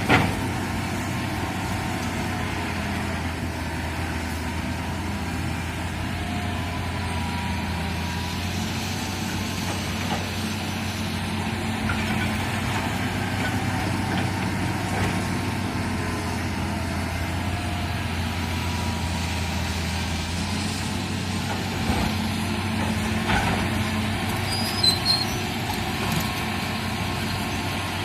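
Excavator's diesel engine running steadily under work, with a few short knocks and clunks near the start and toward the end.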